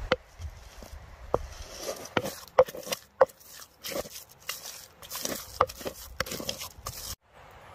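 Wooden pestle knocking and mashing butter in a wooden bowl: irregular dull knocks and squashing scrapes, one or two a second, stopping suddenly near the end.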